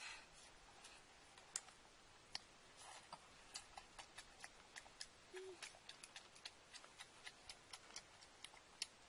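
Faint, irregular small clicks and smacks, about two a second, from children eating cooked fish with their fingers: picking the flesh apart and chewing.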